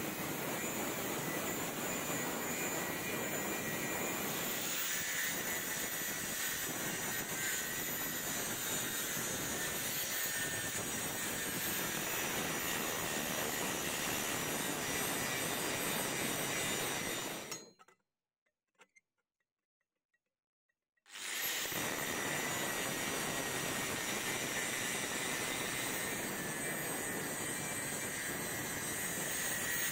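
125 mm angle grinder's abrasive disc cutting and grinding a steel railroad rail: a steady whine over harsh grinding noise. It cuts out to near silence for about three seconds a little past halfway, then runs again.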